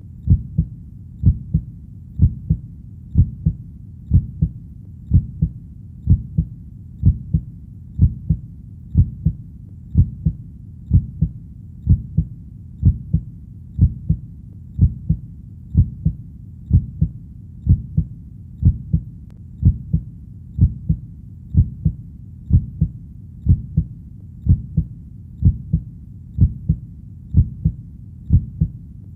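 A heartbeat in a steady lub-dub rhythm: low double thumps about once a second over a constant low rumble.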